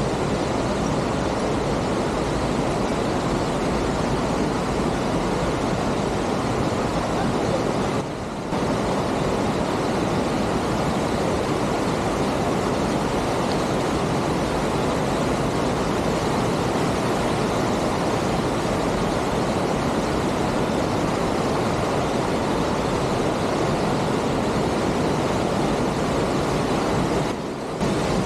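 Steady rush of a fast mountain creek tumbling over rocks, a constant even roar of water that dips briefly twice.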